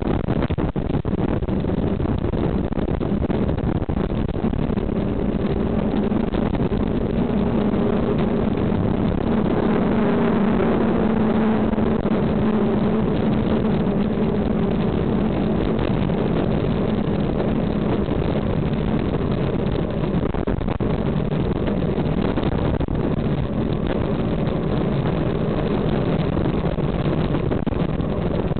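Steady wind rush and road rumble picked up by a bicycle-mounted camera while riding, with a passing motor vehicle's engine hum swelling about ten seconds in and fading a few seconds later.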